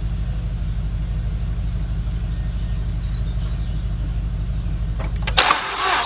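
A steady low mechanical drone with a fast, even pulse. About five seconds in come a few sharp clicks, then the 2006 Mazda 6's V6 cranking over on its starter with an even beat and not firing, during a compression test on a front cylinder that gives no compression.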